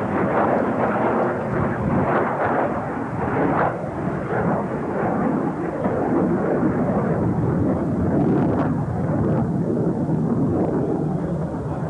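MiG-17F jet fighter flying past, its turbojet producing loud, continuous jet noise with a ragged crackle at times.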